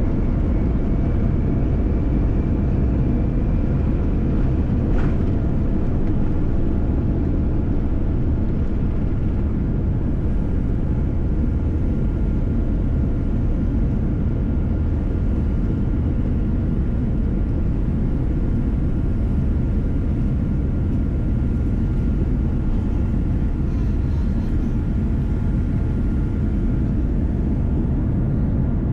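Steady low rumble of a Boeing 787 Dreamliner's engines and airflow heard from inside the cabin, with a faint whine that rises slowly over the first few seconds.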